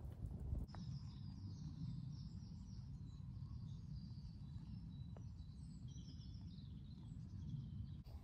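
A moment of wood campfire crackle, then small birds chirping and twittering over a low steady rumble.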